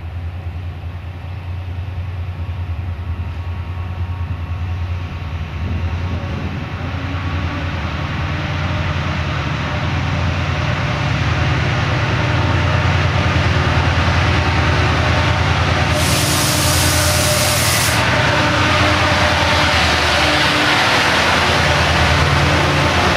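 Train approaching and running by: a low engine rumble grows louder over the first dozen seconds, then the rushing noise of the train passing fills in. About two-thirds of the way through, a sharp hiss lasts about two seconds.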